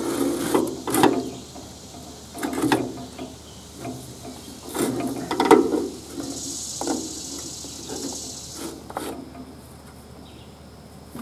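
A battery being worked into a tractor's battery box: scattered knocks, scrapes and clatter of the battery case and metal hand tools against the tray, cable and terminals.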